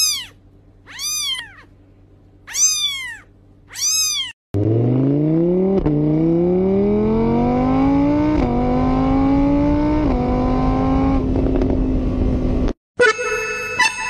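A kitten mews four times, each a short high call that rises and falls in pitch. Then comes a loud engine-like whine that climbs in pitch and drops back three times, like a motorbike accelerating through its gears, until it cuts off suddenly. Music begins near the end.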